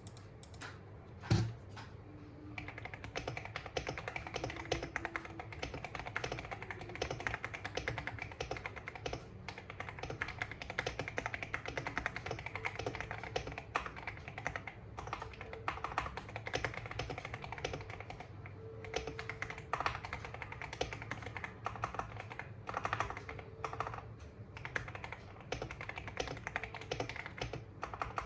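Typing on a KBD67 Lite R2 mechanical keyboard with lubed and filmed Gateron Black Ink linear switches on a polycarbonate plate in an ABS plastic case, with Geekark BOW keycaps: a steady stream of rapid keystrokes. A single knock comes about a second in, before the typing starts.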